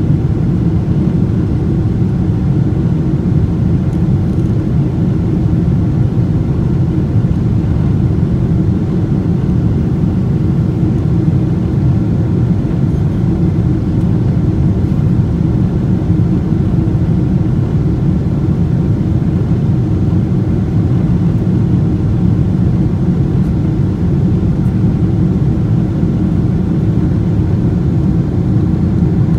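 Cabin noise of a Boeing 777-200ER climbing after takeoff: a steady low roar of its Rolls-Royce Trent engines at climb power and the air rushing past the fuselage, heard from a window seat over the wing, with a few faint steady hums above the roar.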